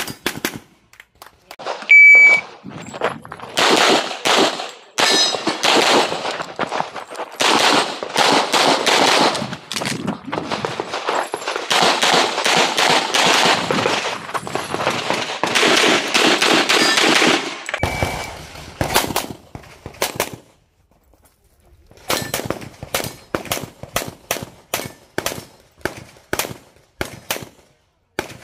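Electronic shot-timer beep about two seconds in, then rapid handgun fire in quick strings for about fifteen seconds as a practical-shooting stage is run. A second short beep comes near the middle, and later a run of more widely spaced shots.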